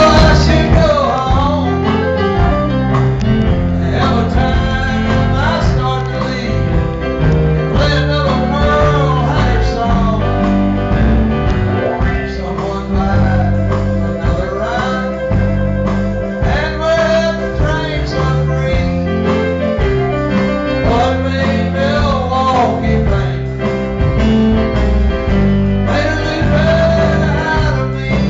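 A live band playing a country-blues style song, a man singing over guitar, piano and drums. The sound is loud and heavy in the bass.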